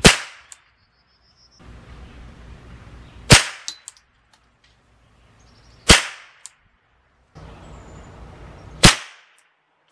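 Ruger 10/22 semi-automatic rifle firing Remington Thunderbolt .22 LR rounds: four single shots about three seconds apart, each a sharp crack with a brief ring after it. A light click follows about half a second after each of the first three.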